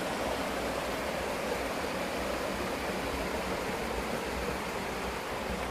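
Shallow river water rushing over and between rocks in small rapids, a steady rush.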